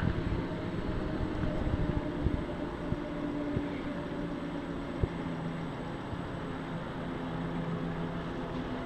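Damper test rig shaking a TVR sports car's suspension: a steady mechanical hum, with a few sharp knocks in the first half.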